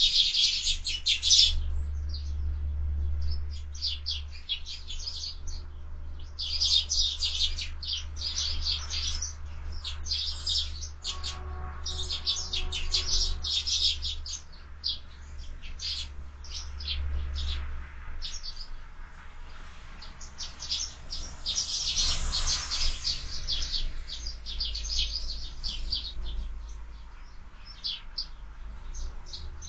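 Sparrows chirping busily at a feeder, many short high chirps in bunches with brief lulls, over a steady low rumble.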